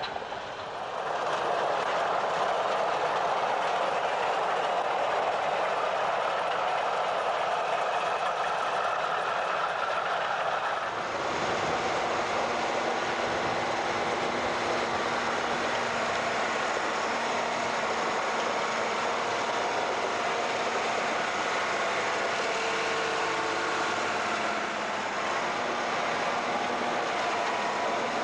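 Heavy diesel engine of a large farm tractor running steadily, its sound shifting about eleven seconds in to a different engine note.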